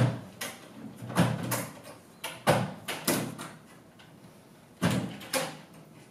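Doors knocking and rattling in their frames as a kitten pushes and paws at the gap between them: a series of irregular knocks, several coming in quick pairs.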